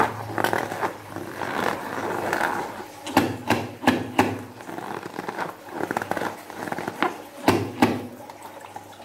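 Hands squeezing and rubbing a filled latex balloon, the rubber squeaking and creaking under the fingers, with several loud sharp squeaks about three to four seconds in and again near the end.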